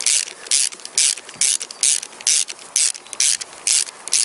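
Ratchet wrench with a 10 mm socket on an extension backing out a cylinder head cover bolt, its pawl clicking in short bursts about twice a second with each back-swing of the handle.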